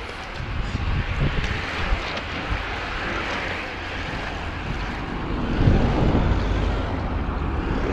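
Wind rushing over a bike-mounted camera's microphone, with tyre noise on asphalt, as a racing bicycle rides at speed. The rush swells louder about two-thirds of the way in.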